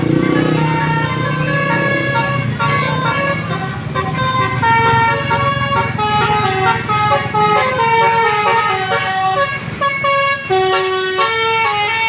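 Bus telolet horn, a multi-tone musical horn, playing a quick tune of changing notes, with a low rumble underneath in the first few seconds.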